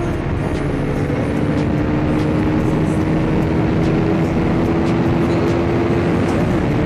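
KTM RC 390's single-cylinder engine pulling hard at highway speed, its note climbing slowly, over a steady rush of wind. The pitch steps down briefly near the end.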